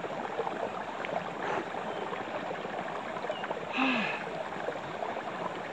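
Steady rushing of a freshwater stream, with a man's short grunt falling in pitch about four seconds in as he finishes his push-ups.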